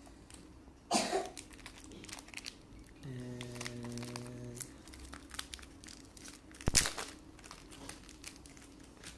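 Clear plastic bag crinkling as it is torn open and an acrylic magnetic card case is worked out of it, with a sharp crackle about a second in and a loud click past the middle. A low steady hum lasts about a second and a half near the middle.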